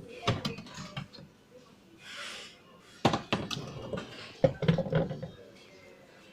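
Handling noise: a run of knocks and clatters, the loudest about three and four and a half seconds in, with a short hiss about two seconds in.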